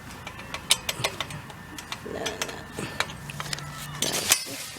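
Metal swing set parts and bolt hardware clinking and clicking as they are handled and fitted, a string of sharp irregular clinks. A low steady hum comes in for about a second near the end.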